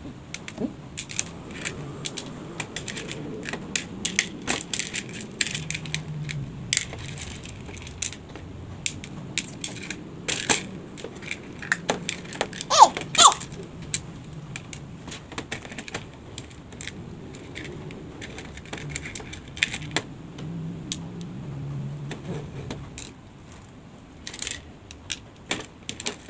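Small coloured craft stones clicking and clattering as they are picked from a plastic bowl and set down on a plastic plate, with many light, irregular taps. A short squeak rises and falls about halfway through.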